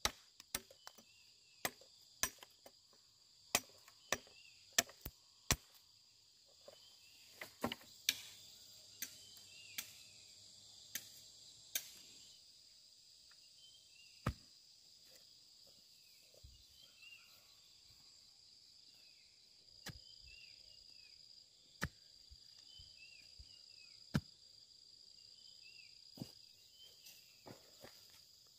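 Sharp chopping strikes at irregular intervals, quick at first and sparser in the second half, over a steady high-pitched insect drone.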